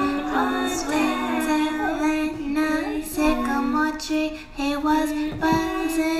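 Music with a woman singing a slow melody over a steady held low note.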